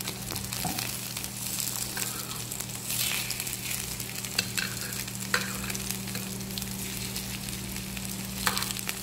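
Prawn vadas shallow-frying in coconut oil, a steady sizzle, with several light taps and scrapes of a spatula in the pan as the patties are turned.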